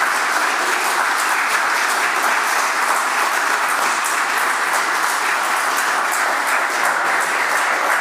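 Audience applauding, a steady, even clapping that keeps up at the same level throughout.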